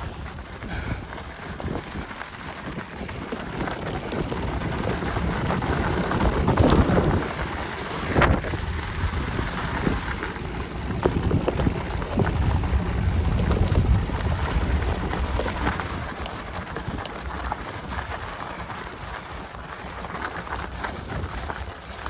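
Mountain bike being ridden on a dirt trail: wind buffeting the microphone over the rattle and rumble of the bike, with a couple of sharp knocks about a third of the way in.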